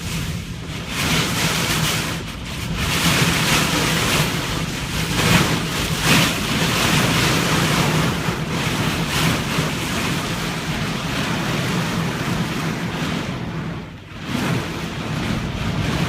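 Loud rushing noise of wind and water rising and falling in surges, with wind buffeting the microphone and a steady low hum underneath. It dips briefly near the end.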